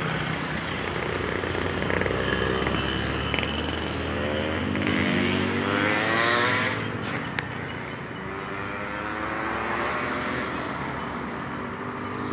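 Road traffic, with a motor vehicle's engine running and passing close about six seconds in, followed by a couple of sharp clicks.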